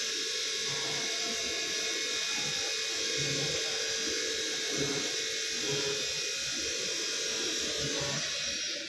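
CNC router's axis drive motors whining steadily as the gantry and spindle head travel across the table, cutting off just before the end.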